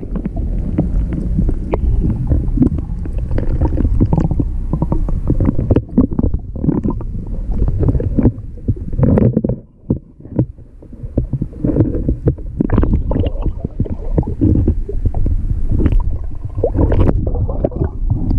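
Wind buffeting the microphone aboard a fishing boat: a loud, uneven low rumble, with a brief lull about ten seconds in.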